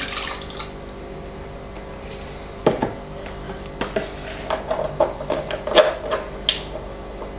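Milk finishing pouring from a plastic measuring jug into a bowl, then a run of light clicks and taps as the milk carton and jug are handled and the carton's plastic screw cap is closed.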